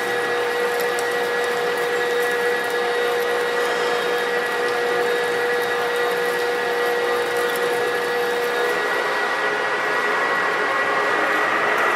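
Knuth Turnado manual metal lathe running under cut, its tool fed into the end of a spinning steel workpiece and throwing chips. The sound is a steady machine hum with a constant whine.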